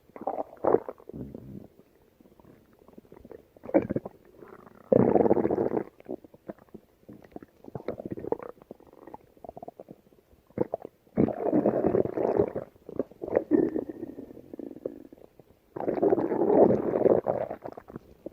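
A woman's stomach growling and gurgling in irregular bursts, several of them lasting one to two seconds, with short bubbling sounds and brief quiet gaps between.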